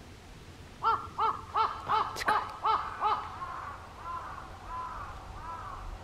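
Black Woodpecker calling a fast, even series of about seven loud 'kwee' notes, followed by a few fainter, drawn-out notes trailing off.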